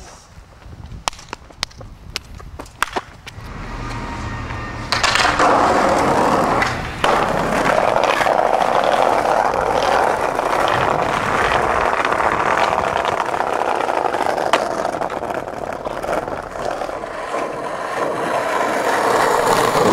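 Skateboard wheels rolling over pavement, heard up close with a continuous rough rumble that starts suddenly about five seconds in. Before it there are a few scattered sharp clacks of boards and wheels.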